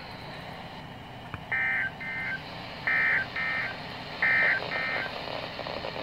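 Emergency Alert System end-of-message data bursts from NOAA Weather Radio: three short bursts of shrill, warbling digital tones, about 1.3 seconds apart, that end the warning broadcast. Each burst is followed about half a second later by a quieter copy, over a faint radio hiss.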